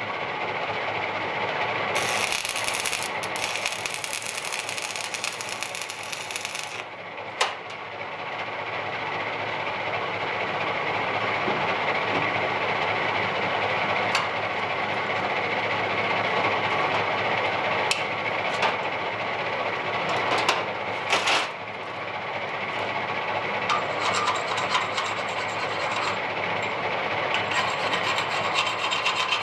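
Stick-welding arc crackling and sizzling steadily as a flux-coated electrode burns, with a brief break about seven seconds in and again about twenty-one seconds in, and a few sharp clicks.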